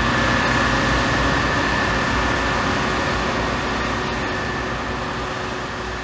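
Combine harvester running while cutting grain: a steady mechanical din with a constant high whine, slowly fading.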